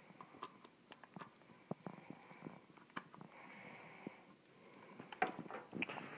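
Faint clicks and rustles of a power cord being handled and its plug pushed into a plastic power strip, with a soft breath a little past the middle.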